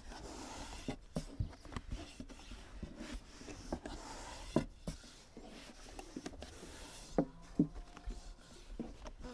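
Scattered light knocks, clicks and rubbing of hands-on food preparation, with a few sharper knocks in the second half.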